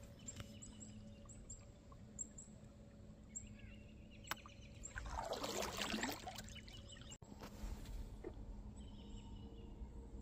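Quiet gliding canoe on a river: about five seconds in, a paddle stroke swishes and splashes water for about a second. Faint, short, high bird chirps come and go throughout.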